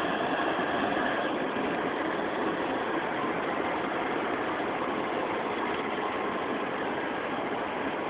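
Two Kansas City Southern de México diesel locomotives running, a steady engine rumble that holds an even level with no horn or change in pitch.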